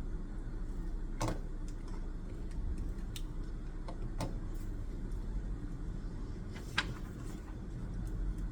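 Steady low rumble and hum of background room noise, with a few light clicks and taps from pen and paper at a study desk.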